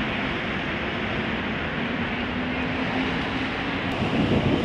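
City tour bus in motion: a steady mix of engine and road noise with a faint hum, a little louder near the end.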